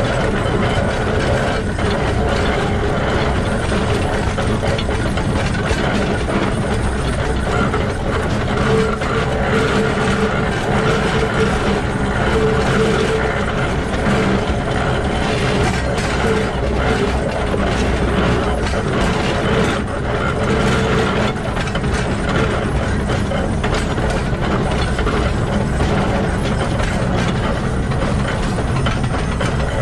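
Shay geared steam locomotive SL-31's bevel gears and wheels running on the truck at close range: a steady, rapid mechanical clatter of gear teeth meshing along with wheels on the rails.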